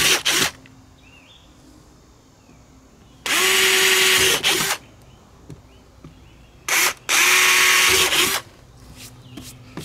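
Cordless drill boring a cleat-mounting hole through a fiberglass boat gunwale in short runs: one run ends about half a second in, then two more runs of about a second and a half each. The motor spins up at the start of each run and winds down at the end.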